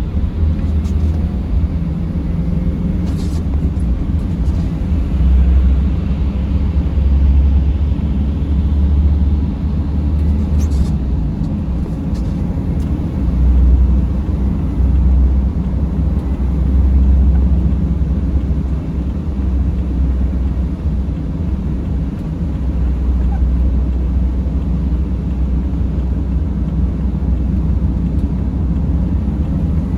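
Steady low rumble of a van's engine and tyres heard from inside the cabin while driving, swelling and easing a little with speed, with a couple of faint clicks.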